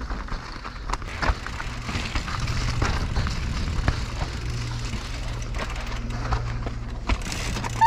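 Mountain bike riding down a natural dirt trail: tyres rolling and the bike rattling over the ground, with several sharp knocks from bumps.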